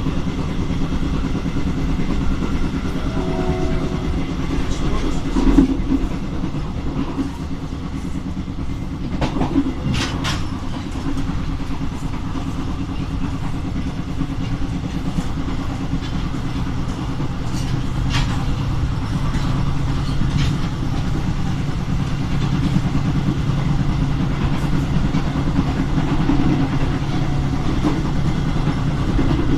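Locomotive-hauled passenger train running along the track: a steady rumble of wheels on rail under a low diesel drone, with a few sharp clacks over rail joints around ten seconds in and again near eighteen seconds.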